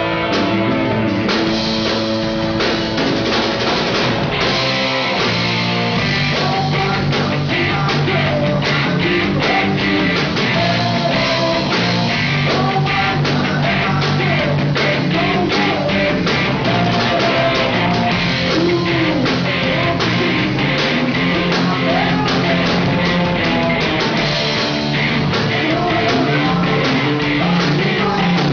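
A live rock band playing: electric guitars, electric bass and a drum kit, with a steady beat.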